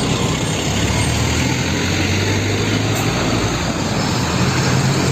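A heavy diesel dump truck driving on the road: a steady low engine drone with tyre and road noise.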